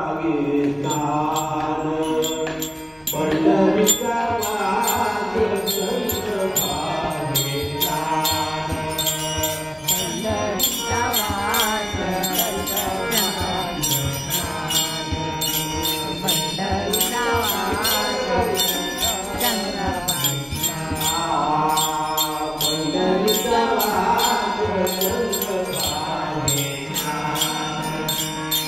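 An elderly man singing an abhang, a Marathi devotional song, in a chant-like melody, with small metal hand cymbals struck in a steady beat.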